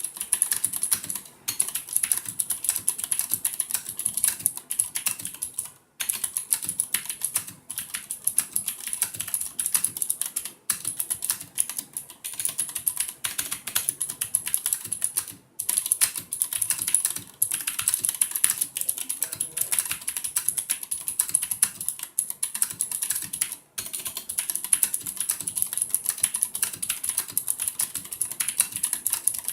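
Fast continuous typing on an IKBC F108 mechanical keyboard with clicky Cherry MX Blue switches, a dense run of sharp, bright clicks broken by a few brief pauses. Soft O-rings under the keycaps cushion the bottoming out, so the switches' clicks stand out.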